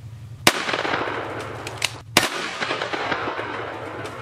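Two shotgun shots about a second and a half apart, each a sharp blast followed by a long fading echo.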